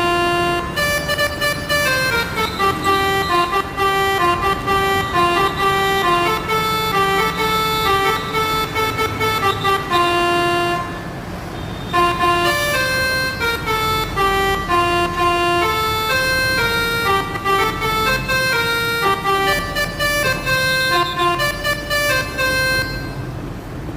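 Bus 'telolet' horn, a set of multi-tone air horns switched in turn, playing a quick melody of stepped notes, with a short break about eleven seconds in before the tune goes on.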